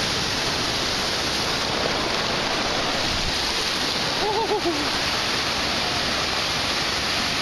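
Ocean surf rushing and breaking in a steady wash of noise. About four and a half seconds in, a short pitched call of a few rising-and-falling notes sounds over it.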